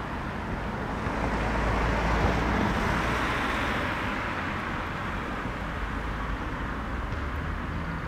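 A road vehicle passing by: its noise swells, is loudest about two to three seconds in, then fades, over a steady low rumble.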